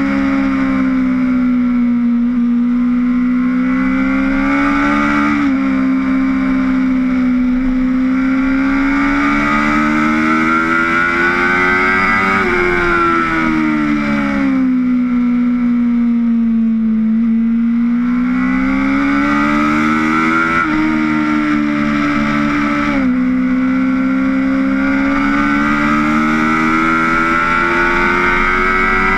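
Honda sport bike's engine at speed on track, revs climbing through the gears with a few abrupt steps in pitch at gear changes, falling away smoothly under deceleration about midway and then pulling up again.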